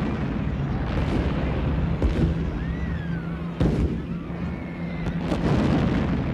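Air-raid bombing sounds: a series of explosions at irregular intervals over a rumbling backdrop, with a whistle that rises and then falls in pitch between the blasts.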